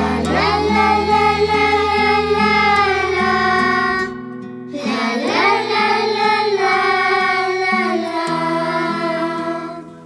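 Group of children singing two long held notes with no words heard, each swooping up at its start and held for about four seconds, over acoustic guitar and bass accompaniment.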